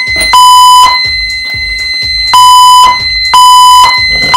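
Red System Sensor fire alarm speaker/strobes sounding the temporal-three evacuation tone between voice messages. One loud half-second beep comes at the start, then after a pause of about a second and a half three more beeps follow a second apart, the last near the end. A steady high-pitched beep from the fire alarm annunciator's sounder runs underneath.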